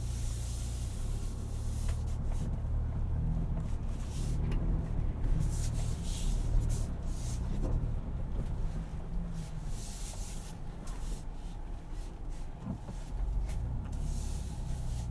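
Ford Bronco's 2.7-litre EcoBoost twin-turbo V6 running at low speed on a trail, heard from inside the cabin as a steady low rumble. Irregular bursts of hiss come and go over it.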